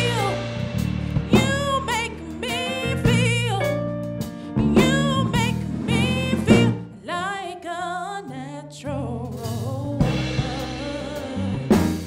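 A woman singing lead vocals in a soulful style with a live band of drum kit, electric bass guitar and keyboard. Her long held notes waver with a wide vibrato around the middle.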